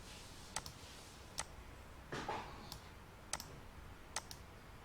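Faint, sharp clicks at irregular intervals, about seven in all, two of them in quick succession, from computer controls being operated to page through a photo slideshow.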